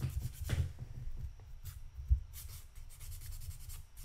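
Sandpaper rubbing in short, scratchy strokes on a plastic model tank track link, smoothing down filler over ejection pin marks. There is a sharp low knock about two seconds in.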